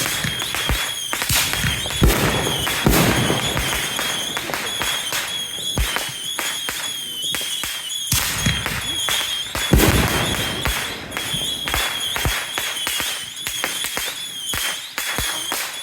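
Fireworks going off in rapid succession: a dense run of bangs and crackles, with louder booms about two seconds in and again near ten seconds.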